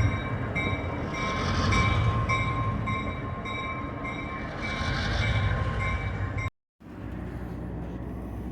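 Passenger excursion train running, a steady rumble with a high ringing tone that pulses about twice a second. The sound cuts out briefly near the end, then comes back as a quieter rolling noise.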